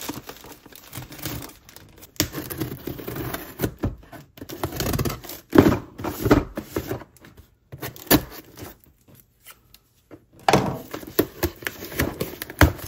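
Scissors cutting open a plastic poly mailer, the plastic rustling and tearing, then a cardboard mailing box handled with knocks and thunks as its flaps are pried and torn open. The noises are irregular, with a brief hush about two-thirds of the way through.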